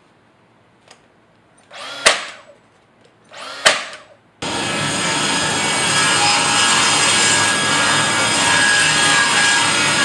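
A brad nailer fires twice, about two seconds apart. Each shot is a brief whir ending in a sharp crack. Then, from a little under halfway through, a table saw runs loud and steady as a long board is ripped along its fence.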